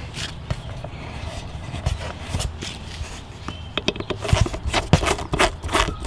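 Screwdriver turning a closure plug into the unused top hole of a weatherproof electrical box: irregular small clicks and scrapes of metal on metal, coming more often in the second half, over a steady low rumble.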